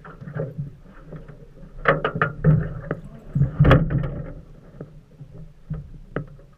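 Hollow knocks and slaps on an aluminium boat hull as it rocks on choppy water. The knocks come in two loud clusters about two seconds and three and a half seconds in, with a single sharper knock near the end.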